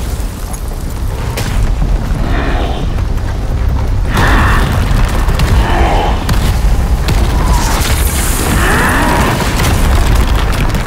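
Sound effects of a rock cliff blasting apart and collapsing: a continuous deep rumble with booms and crashing, scattering rock debris.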